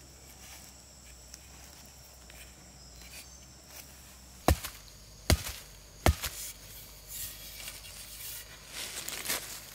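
Three sharp chopping blows, a little under a second apart, of a small hatchet on a green bamboo pole, cutting its end to a point. Softer scuffing noises follow.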